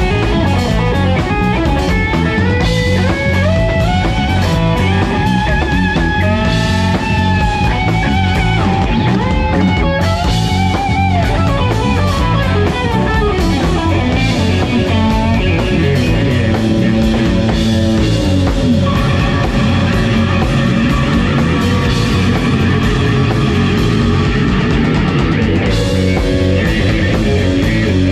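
Live rock-jazz band playing: an electric guitar lead with many bent, sliding notes over electric bass and drum kit, with some longer held notes in the second half.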